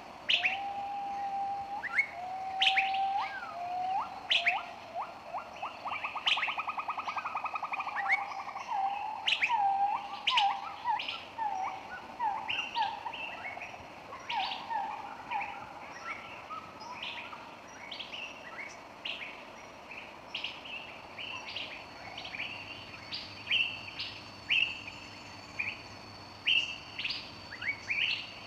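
Birds chirping and singing: many short rising whistles and calls overlapping, with a fast trill of rapid notes about six to eight seconds in.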